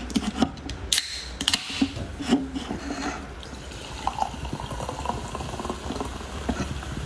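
A person drinking orange juice close to the microphone, with loud gulps, swallows and sharp mouth clicks over the first three seconds or so, then softer swallowing sounds.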